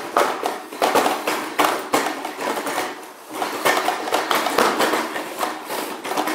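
Booster Robotics T1 humanoid robot's feet stepping and stamping on a wooden floor in quick, irregular knocks and clatter as it catches its balance after being pushed.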